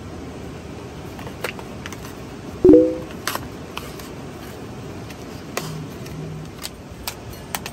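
Steady hiss of a portable gas stove burner under a kettle, with scattered crinkles and clicks as the paper lid of an instant-noodle cup is peeled back and the seasoning sachets are handled. About two and a half seconds in, a short loud ringing squeak is heard, then fades.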